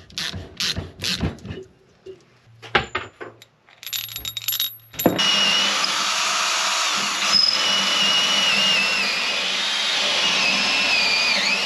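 A socket ratchet clicking in quick, even strokes for about two seconds, then a few knocks. About five seconds in, a cordless drill fitted with a socket starts and runs steadily on a bolt, its motor whine wavering in pitch as the trigger is worked.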